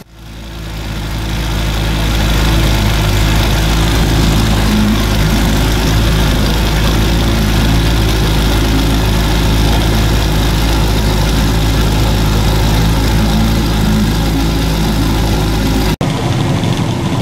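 Boat engine running steadily while under way, its low, even drone swelling up over the first couple of seconds. It cuts off abruptly near the end.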